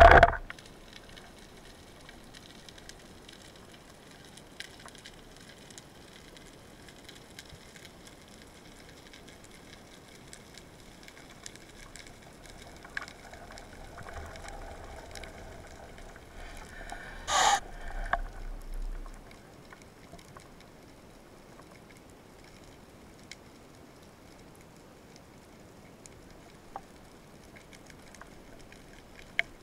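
Underwater sound: a faint steady hiss with scattered small clicks. About halfway through comes a stretch of bubbling, with one sharp knock in the middle of it.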